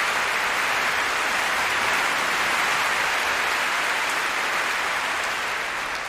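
Large audience applauding steadily, starting to die down near the end.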